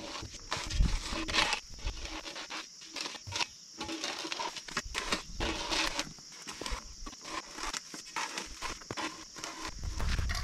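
Irregular light scrapes and clicks, with a steady high hiss behind them.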